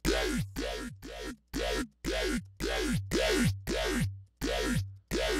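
Dubstep bass patch in the Xfer Serum synthesizer, triggered over and over at about two short hits a second. Each hit has a deep sub-bass under stacked tones that sweep downward in pitch.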